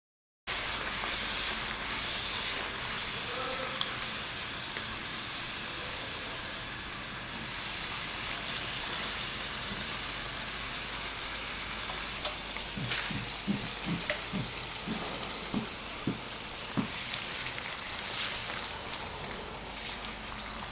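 A poori deep-frying in hot oil in a pan: a steady sizzle, with a run of short, soft low knocks about two-thirds of the way through.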